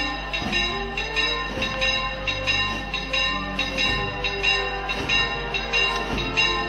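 Church bells ringing a rapid peal (a repique). The strikes come quickly and evenly, several a second, and their tones ring on and overlap.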